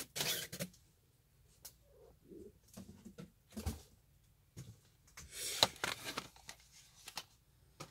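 Cardboard shipping box being lifted and set aside: scattered rustles and scrapes, a dull thump about halfway, and a denser flurry of rustling near the end, with quiet gaps between.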